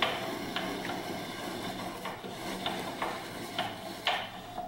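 Scraping and rattling of metal parts, with irregular sharp clicks, as the milling machine's X-axis leadscrew is turned by hand to drive the table back against a board and press off the stuck end bearing mount.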